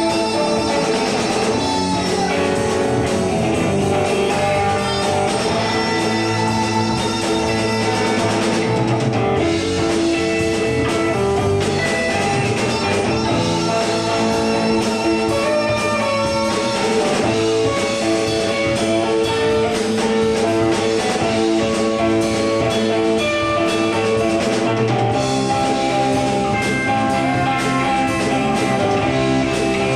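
Live band playing: electric guitar over bass guitar and a drum kit, loud and continuous.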